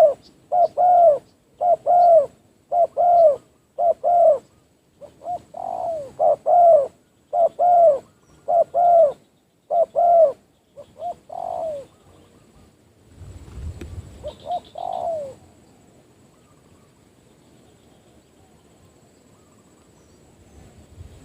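Spotted dove (tekukur) cooing: a rapid series of short, arched coo notes for about twelve seconds. A low rumble follows, then two last coos, and the calling stops.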